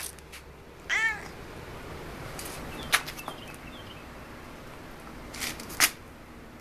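Domestic cat giving one short meow about a second in, rising and falling in pitch. A few sharp clicks follow, the loudest about halfway through and another near the end.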